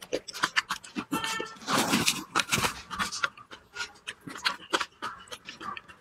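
Close-miked eating of fresh red chilies: chewing and lip smacks making many sharp clicks, with a hard, hissing breath about two seconds in, a person panting at the heat of the chilies.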